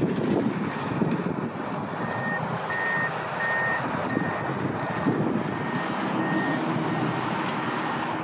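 Quarry machinery running with a steady low rumble. A truck or loader's reversing alarm beeps at one high pitch, repeating about every half-second to second, from about two seconds in.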